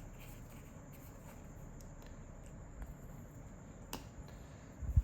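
Quiet handling of trading cards: a faint rustle with a sharp click about four seconds in and a soft low thump near the end, over a steady faint high-pitched tone.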